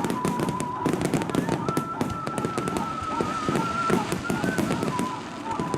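Fireworks display with dense, rapid crackling pops from many shells bursting at once. A thin steady tone runs underneath.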